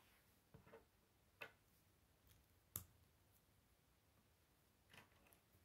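Faint clicks of plastic K'nex pieces being handled and fitted together: four or so scattered small ticks, the sharpest about halfway through.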